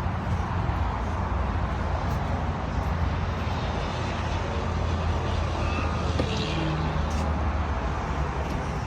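Steady low rumble of vehicle traffic and engines outdoors.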